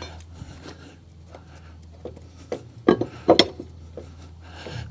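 Steel mower blade and a 2x4 clinking and knocking against a Kubota 60-inch mower deck as a new blade is fitted onto its spindle: light scrapes and clinks, then about three sharp knocks around three seconds in.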